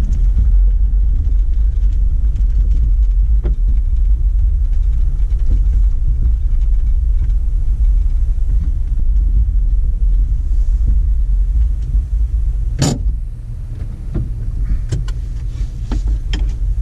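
Jeep Wrangler driving slowly over a gravel and dirt road, heard from inside the cab: a steady low rumble of engine and tyres, with light clicks and one sharp knock about thirteen seconds in.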